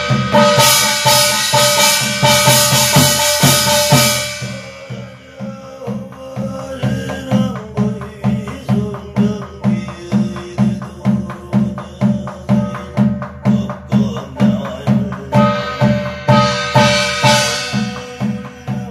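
Korean shaman's barrel drum (buk) beaten in a steady rhythm of about two or three strokes a second, keeping time for a chanted gosa scripture reading (gyeong), with a man's chanting voice over it in the middle. A small brass gong clangs loudly over the drum for the first four seconds and again near the end.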